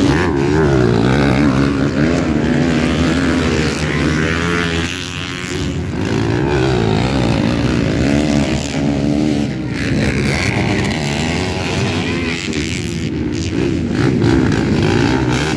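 250cc four-stroke motocross bikes riding past on a muddy track, one after another, their engines revving up and dropping back over and over as the riders accelerate and ease off.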